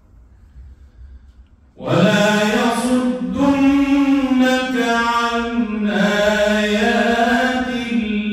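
A man reciting the Qur'an in the melodic mujawwad style. The recitation begins about two seconds in, after a quiet pause, and draws each phrase out in long, ornamented held notes.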